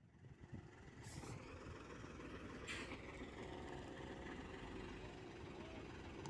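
Large truck's diesel engine running steadily, with two short hisses about one and three seconds in.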